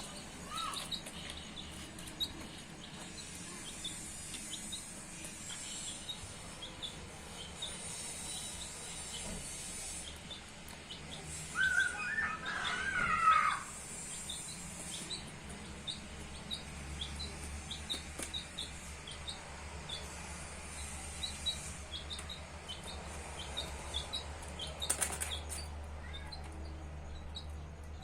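Baby chicks peeping: many short, high chirps repeated over and over, with a louder, lower warbling call for a second or two near the middle and a brief click later on.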